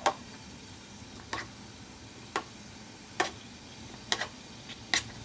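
Turnip-and-sugar syrup dripping from a strainer into a bowl as the pressed turnip drains: about six light, sharp ticks at irregular spacing, roughly one a second.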